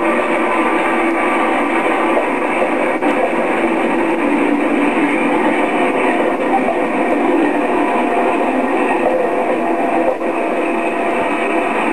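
British Rail Class 87 electric locomotive running, a steady, continuous train noise with a few faint held tones. It sounds thin and without bass, as re-recorded from a TV's speaker.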